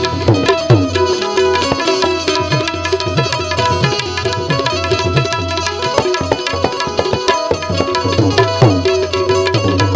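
Instrumental bhajan accompaniment with no singing: tabla playing a busy rhythm, some bass-drum strokes sliding down in pitch, under steady held notes from a melodic instrument.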